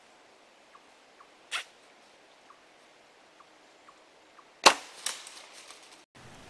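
A bow shot at a deer: one loud, sharp snap of the bow firing about two-thirds of the way in, followed half a second later by a second, smaller crack, then a short fading tail. A smaller sharp snap comes earlier, about a second and a half in.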